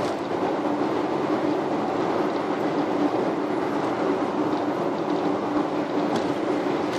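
Steady road and tyre noise inside a car's cabin at expressway speed, with a steady low hum under it.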